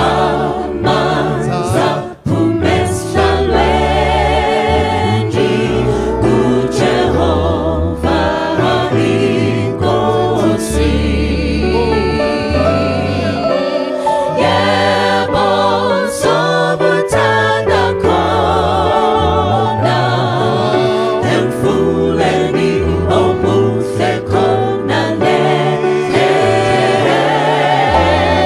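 Vocal group singing in harmony through microphones, many voices wavering on sustained notes over a low bass part. The sound dips for an instant about two seconds in.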